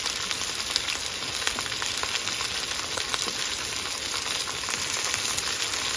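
Salmon fillets frying in a pan on a Jetboil gas stove: a steady sizzle with small crackles, the pan running hot enough to have burnt the bottoms of the fish.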